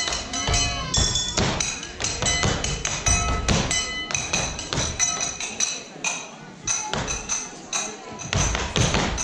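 Japanese festival percussion accompanying a lion dance: quick, uneven wooden clacks and knocks mixed with short ringing metallic clinks, easing off a little in the second half.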